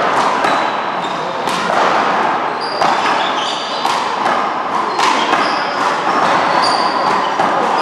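Rally of one-wall handball and paddleball: the small rubber ball smacked by hands and paddles and rebounding off the wall and floor, a dozen or so sharp hits, echoing in a large hall, with short sneaker squeaks on the court floor between them.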